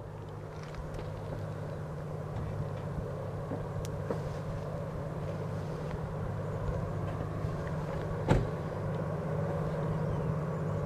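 Diesel locomotives of an approaching intermodal freight train, an EMD SD70M-2 leading a GE C44-9W: a steady low engine drone that grows slowly louder as the train nears, with one sharp click about eight seconds in.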